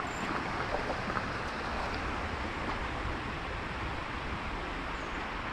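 Steady rush of a shallow creek's running water, an even hiss with no distinct events.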